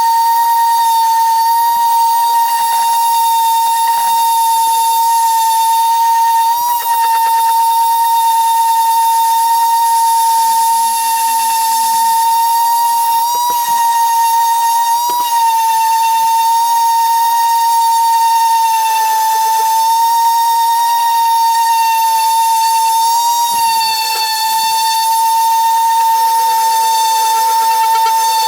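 A small high-speed electric motor whining steadily at one high pitch throughout, the pitch wavering slightly a few times.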